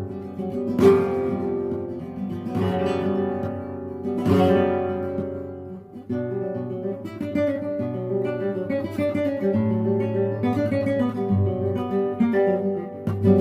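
Acoustic guitar music: a few ringing strummed chords, then quicker picked notes from about six seconds in.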